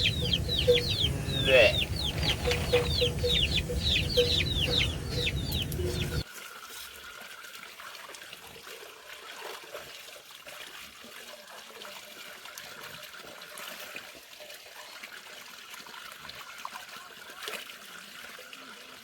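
Chickens and chicks peeping and clucking, many quick falling chirps in a row, over a low rumble of background noise. About six seconds in, it cuts off abruptly to a faint hiss.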